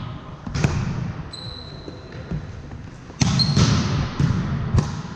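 Volleyball game on a hardwood gym court: sharp slaps of the ball being hit, about half a second in, around three seconds in and again near five seconds. A short high sneaker squeak on the floor comes between them, all echoing in the large hall.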